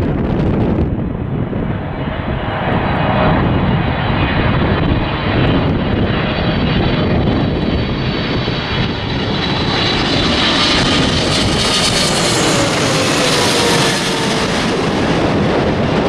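Jet airliner engines passing close by, with a steady roar that builds to a peak with a high whine about twelve seconds in. Faint tones fall in pitch as the aircraft goes past.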